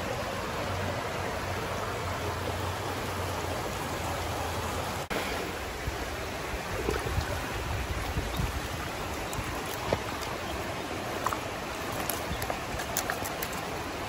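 Creek water running steadily. After a cut about five seconds in, water splashes and drips as a mesh keep net full of fish is lifted out of the creek, with scattered small slaps and clicks.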